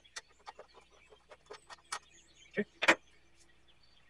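Light clicks and taps of hands handling the VCR's parts and casing, with two louder clacks a little under three seconds in.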